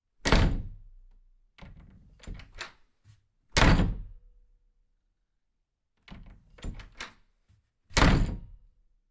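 Three heavy thuds about four seconds apart, with bursts of lighter knocks between them.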